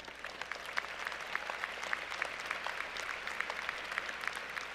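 Audience applauding, a steady clatter of many hands clapping after building up just before.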